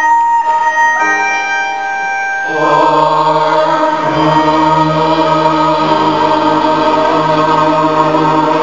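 A group of graduates singing together over an instrumental accompaniment: steady held chords at first, then many voices come in on long held notes about two and a half seconds in, with low bass notes joining.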